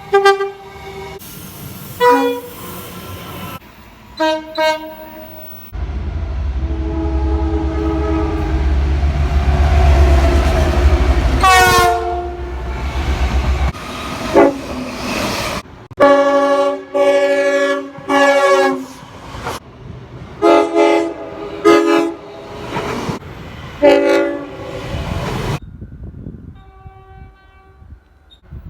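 Locomotive air horns sounding a series of chord blasts, short and long, from more than one train. In the middle a train passes with a steady low rumble, and its horn falls sharply in pitch as it goes by. A run of blasts follows, and a fainter, more distant horn sounds near the end.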